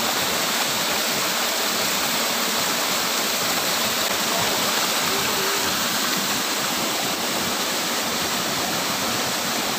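Steady rush of water pouring from a pond's outflow into a small pool below, an even splashing noise with no change throughout.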